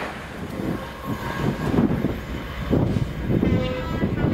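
Class 67 diesel locomotive, with its EMD two-stroke V12 engine, passing close at speed and pulling away, its engine and wheel rumble swelling and falling in gusts. Near the end a brief steady higher tone sounds over the rumble.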